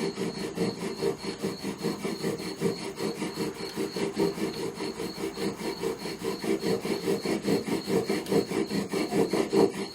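Yucca spindle drilled against a pine base board in a friction-fire drill worked back and forth by a toggle cord: a rhythmic rasping groan with each stroke, about three strokes a second, as the drilling builds toward a coal.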